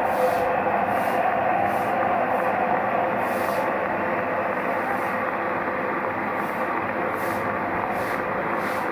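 Large cricket-ground crowd giving a long standing ovation: steady, sustained applause and cheering.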